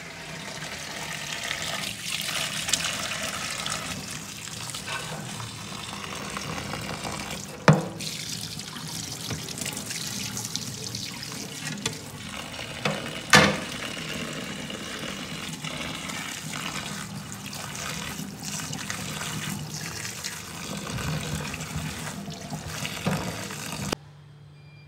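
Tap water running into a steel kitchen sink and splashing through a wooden bowl over chopped greens being rinsed, with two sharp knocks about eight and thirteen seconds in. The water stops shortly before the end.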